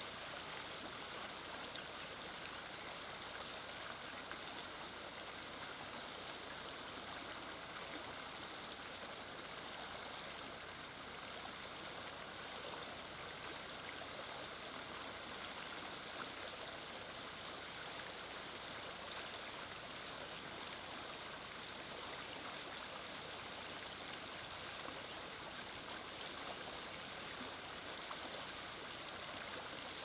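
Small stream running with a steady babble of flowing water that holds at an even level throughout.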